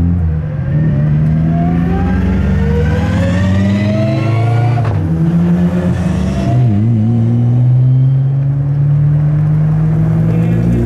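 Race car engine at full throttle, rising in pitch for about five seconds, then a sharp gear change and the engine pulls on at a steadier note.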